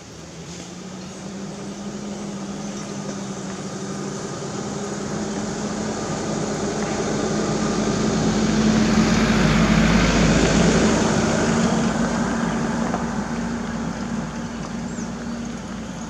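Engine of an off-road 4x4 SUV running as it approaches slowly on a gravel road, a steady hum that grows louder to a peak about two-thirds of the way through and then eases off.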